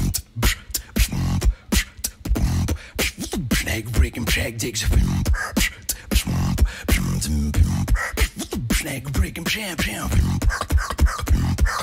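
Solo human beatboxing: a fast, steady pattern of sharp mouth-made kick and snare clicks over deep bass notes, with short pitched vocal effects between them.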